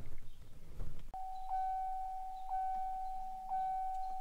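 Car's electronic warning chime as the ignition is switched on: a steady tone that starts about a second in and pulses about once a second, after faint handling noise.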